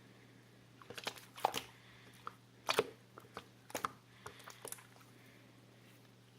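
Irregular light taps and clicks, about a dozen over a few seconds, the loudest a little under halfway through, over a faint steady hum.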